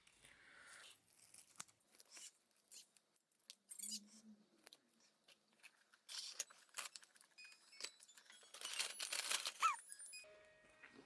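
Scattered clicks and knocks with short rustles of handled packaging, and a longer, louder crinkling tear near the end.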